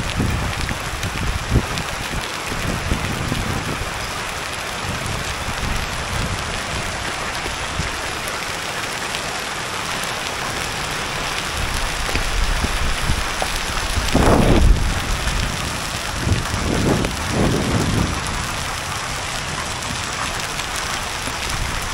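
Hail and heavy rain pelting a wet asphalt road, a dense, steady hiss of countless small impacts. A low rumble swells briefly about two-thirds of the way through.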